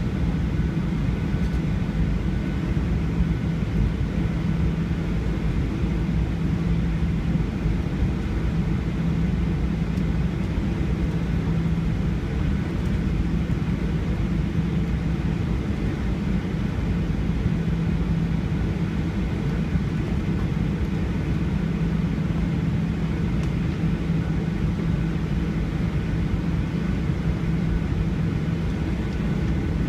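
Steady jet airliner cabin noise: a constant low rumble with a steady hum from the engines, unchanging in level, heard from inside the cabin.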